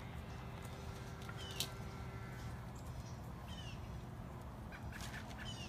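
Faint bird calls: short falling chirps every couple of seconds over a steady low background rumble.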